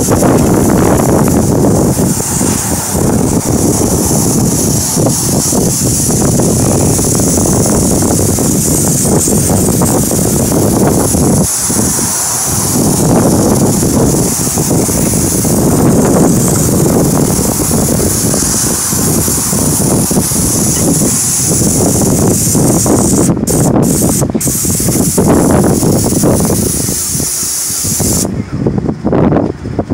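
Airless paint spray gun on an extension pole hissing steadily as it sprays a soffit. The hiss breaks off briefly three times near the end and then stops as the trigger is released. Heavy wind rumble on the microphone runs under it.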